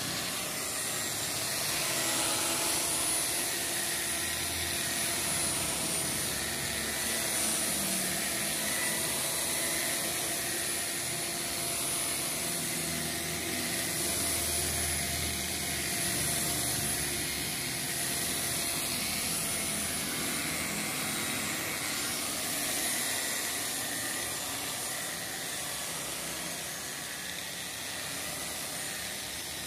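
Electric rotary car polisher running steadily while its spinning pad buffs polish into a car's painted fender. It is a steady motor whine over an even hiss.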